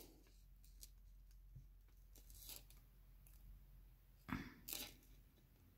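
Near silence with faint handling noises from sorting costume jewelry: a few soft clicks, then two short rustling clicks about four and a half seconds in.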